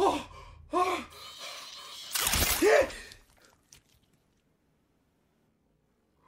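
A man's frightened gasping cries, three short rising-and-falling yelps, over mechanical clicking and a low rumble as the robotic weapon in his forearm folds away. Then near silence for the last few seconds.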